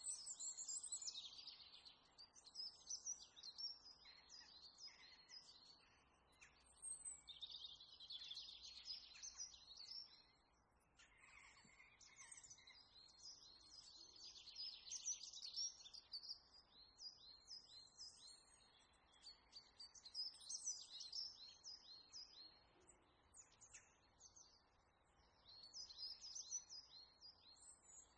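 Faint birdsong: bouts of quick, high chirps and trills, each a few seconds long, with short pauses between, over a soft steady hiss.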